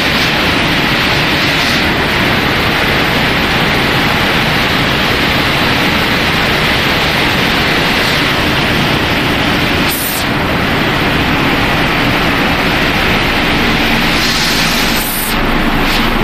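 Machinery of a regenerated-rice production line running: a loud, steady noise with no rhythm and a faint low hum under it.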